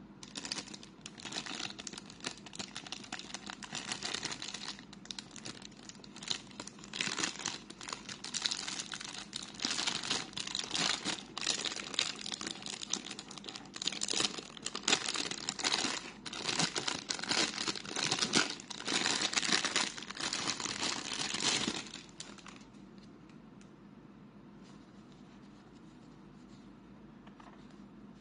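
Clear plastic bag crinkling and rustling as hands pull it off a plastic pump bottle, in quick irregular crackles. It stops well before the end, leaving a faint steady hiss.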